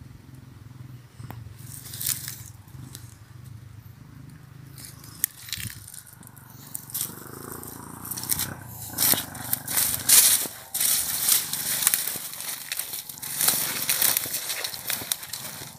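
Irregular rustling and crackling of dry grass and brush, sparse at first and growing busier and louder about five seconds in.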